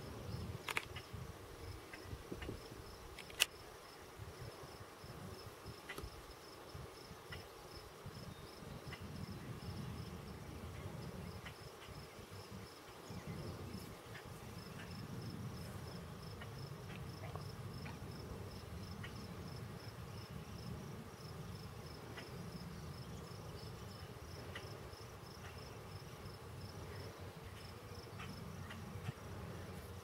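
Insect chirping steadily in a high, evenly pulsed rhythm, cricket-like, over a low rumble. There are a few faint clicks, with one sharp click about three seconds in.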